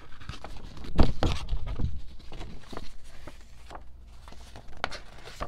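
A folded paper poster being unfolded and handled: crackling, rustling paper with scattered clicks, and a loud thump about a second in.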